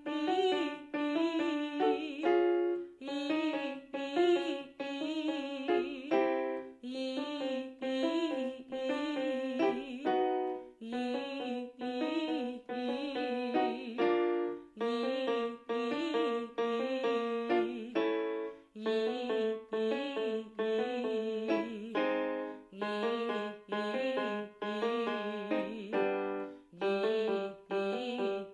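Piano accompaniment with a woman singing fast vocal-exercise runs on a vowel, in short phrases about every two seconds, each set off by a piano chord.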